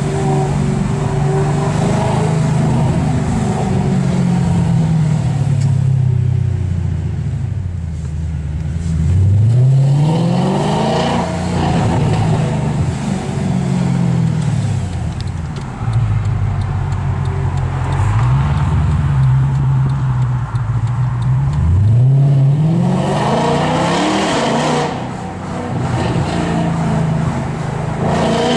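Mercedes C63 AMG Black Series 6.2-litre V8 with IPE exhaust, heard from inside the cabin while driving: the engine note climbs steeply under hard acceleration about a third of the way in and again near the end, with gear changes and easing off in between.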